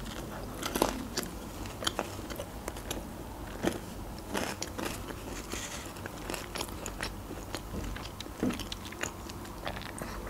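Close-up biting and chewing of a slice of homemade pizza, with many short, irregular crunches and mouth clicks.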